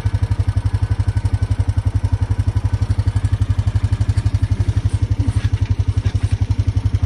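Honda ATV engine idling steadily, an even low chugging of about ten pulses a second.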